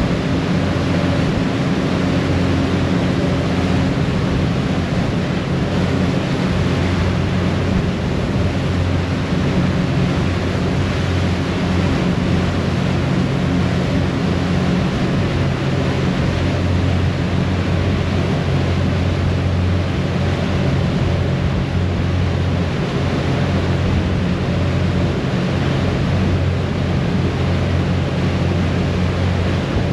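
A ferry's engines run steadily under way, making a constant low droning hum. Over it comes the rushing of the wake churning behind the stern.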